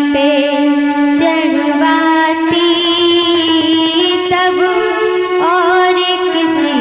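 DJ-remix music with long held melodic notes over a steady drone, the upper notes wavering.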